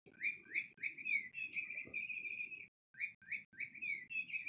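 SmartyKat Chickadee Chirp cat toy playing its electronic bird call: a few quick rising chirps that run into a rapid warble, a brief stop under three seconds in, then the same chirps and warble starting over.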